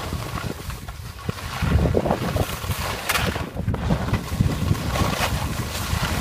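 Wind rushing over a phone microphone while skiing downhill: a steady low rumble, with skis scraping over hard, icy snow in short streaks, one clear just after three seconds in.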